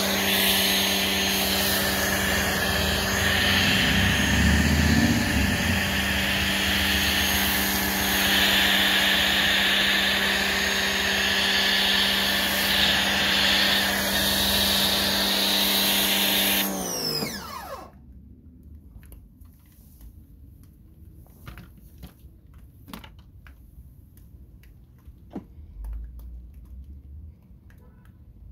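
Greenworks 2000 PSI electric pressure washer running steadily, its motor hum under the hiss of a foam cannon spraying soap. About 17 seconds in the motor shuts off, its hum falling in pitch and dying away, leaving only faint ticks.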